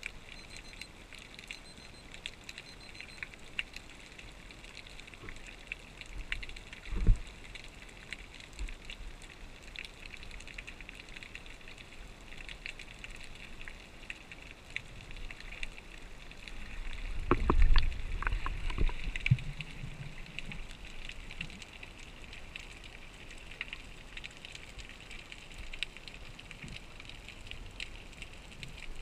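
Underwater sound picked up by an action camera in its waterproof housing: a steady crackle of faint clicks, with a low thump about seven seconds in and a louder low rumbling stretch around seventeen to nineteen seconds.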